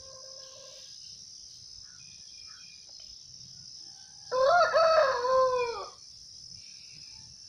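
A rooster crows once, about four seconds in, a single call of under two seconds, over a steady high-pitched chirring of crickets.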